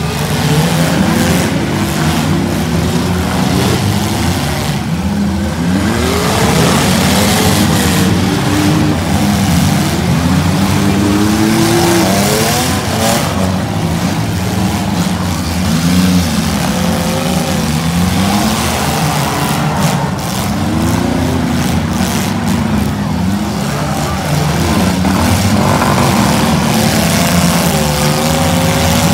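Several six-cylinder demolition derby cars running hard, their engines revving up and down in overlapping waves as they ram one another, with occasional crunching hits.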